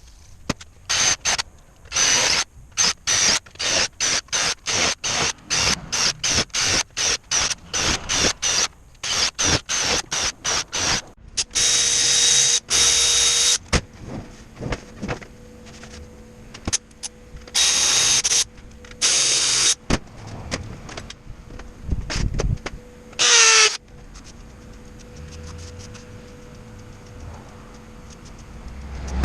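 Power-tool work cut into many short bursts, with a few longer high-pitched runs of the tool about twelve, eighteen and twenty-three seconds in, the last one dropping in pitch.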